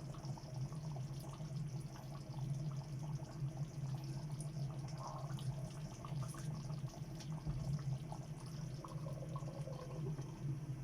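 Water trickling and dripping, with small clicks and splashes over a steady low hum.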